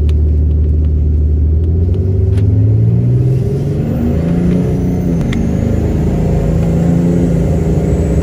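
Cummins diesel pickup engine heard from inside the cab while driving and accelerating, its pitch shifting up and down, with a thin high whine rising slowly through the second half.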